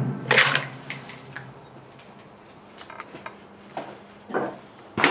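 The bolt of a Ruger American Ranch bolt-action rifle in 7.62x39 is worked with a sharp metallic clack about a third of a second in, chambering the next round after a shot. A few faint clicks follow. The next rifle shot cracks out at the very end, with its echo trailing off.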